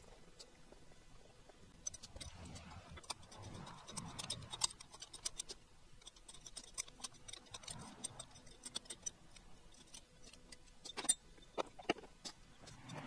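Irregular sharp clicks and clinks of hand tools and metal engine parts being handled during an engine teardown, scattered unevenly with a few louder ones near the end.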